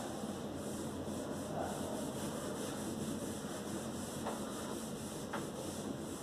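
Felt whiteboard duster rubbing across a whiteboard, wiping off marker writing, over a steady low room hum.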